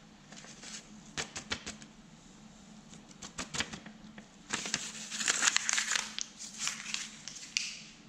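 Paper crinkling and rustling, with scattered light ticks, as activated charcoal powder is tipped and tapped off a paper sheet into a beaker of nitric acid. The crinkling is loudest and densest in the second half, from about four and a half seconds in until just before the end.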